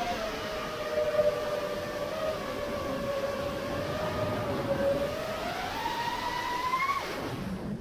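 Brushless motors of a 5-inch FPV quadcopter whining, heard from its onboard action camera with rushing air noise. The pitch holds steady, climbs over the last couple of seconds as throttle is added, then drops away shortly before the end.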